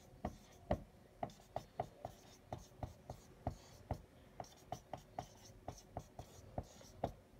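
Blue marker writing letters on a whiteboard: a run of short, quick strokes and taps, about three a second.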